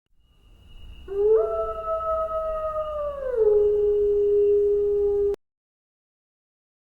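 A wolf howling: one long call that rises at the start, holds, then slides down to a lower held note before cutting off abruptly.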